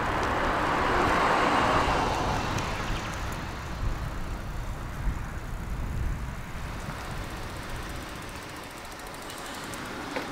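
Outdoor road noise: a car going by in the first couple of seconds, then a low, uneven rumble of wind on the microphone.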